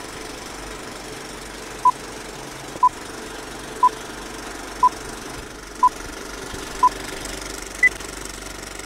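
Film-leader countdown beeps: six short, equal beeps one second apart, then a single higher-pitched beep a second later. They play over the steady whirring rattle of an old film projector.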